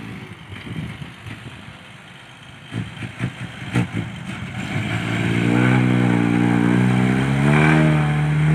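Loaded dump truck's diesel engine labouring as it reverses through loose sand. A few sharp knocks come about three to four seconds in, then the engine revs up hard and gets louder, straining under the load in the soft ground.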